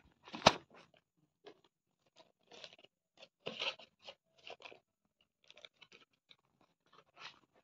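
Handling noise: scattered soft rustles and scrapes of fabric and skin against the phone while it is moved close over the arm, with one sharp click about half a second in.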